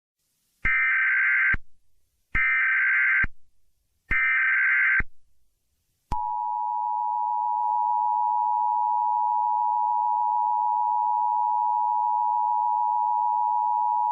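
Emergency Alert System tones: three bursts of screeching SAME header data, each about a second long, then the EAS attention signal. The attention signal is two steady tones sounding together, about 853 and 960 Hz, held for about eight seconds.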